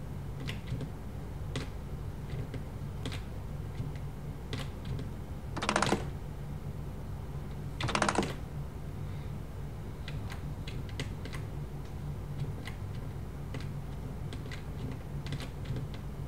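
Computer keyboard keys clicking now and then, with two louder, longer clatters about six and eight seconds in.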